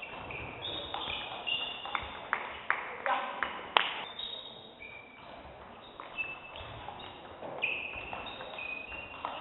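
Table tennis rally: the ball clicking off bats and table in quick succession, with the sharpest hit about four seconds in, then sparser clicks. Further ball clicks from other tables in play mix in.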